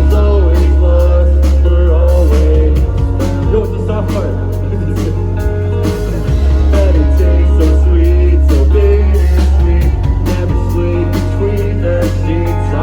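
Live rock band playing loud: drums, heavy bass and electric guitar, with a melodic line that bends up and down over them.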